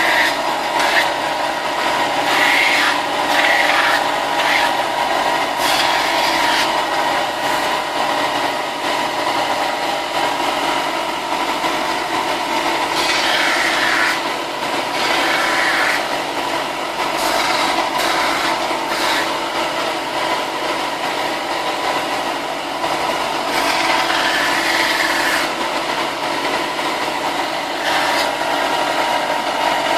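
Power sander running steadily while cut-out plastic armour parts are sanded against it, the rasping swelling in stretches as a piece is pressed harder to the abrasive.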